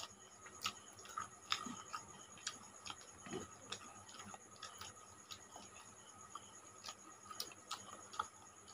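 People eating rice and curry with their hands: scattered, irregular soft clicks and smacks from mouths chewing and fingers working food on the plates.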